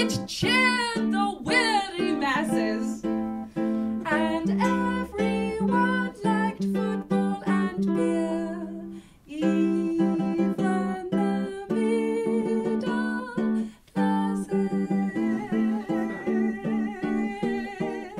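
Instrumental close of a song: plucked string notes over held low notes, with a wordless, wavering sung note in the first couple of seconds.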